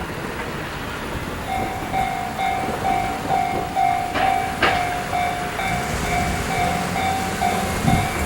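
Japanese level-crossing warning bell starting about a second and a half in, a steady electronic ding repeating two to three times a second. Two sharp knocks come near the middle, and a train's low rumble builds in the second half.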